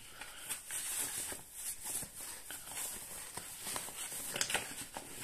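Keyboard packaging being handled as the keyboard is lifted out of its box: irregular rustles, scrapes and light taps.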